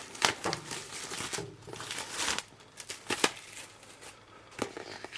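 Cardboard and paper packaging of a 4K Blu-ray box set being handled and opened: a run of rustles, sliding scrapes and light sharp taps.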